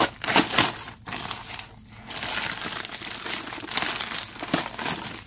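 Plastic shipping mailer crinkling and rustling as it is pulled open by hand and a padded package is drawn out of it, with a louder crackle near the start.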